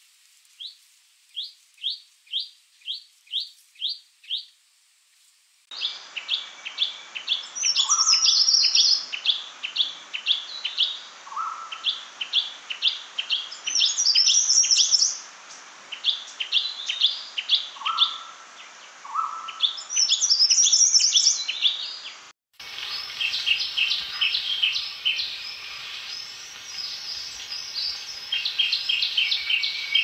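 Recorded shrike-babbler calls: a run of seven evenly spaced high notes, then, after an abrupt cut, a louder, denser series of repeated chirping notes with occasional higher rising phrases. About three quarters of the way through, another cut brings a different recording with more chirps over a steady background hiss.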